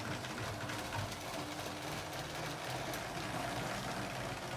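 LEGO train's small electric motor running as the train moves along plastic track, a steady whir with irregular light clicks from the wheels and track.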